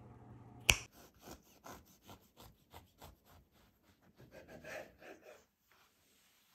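A sharp knock, then a serrated knife sawing through a baked loaf cake on a wooden cutting board: quick, rhythmic rasping strokes, about four or five a second, which stop about a second before the end.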